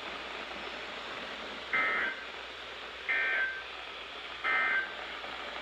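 Emergency Alert System end-of-message data bursts: three short, buzzy digital chirps about a second apart, closing the flood warning broadcast. They sound over a steady radio hiss.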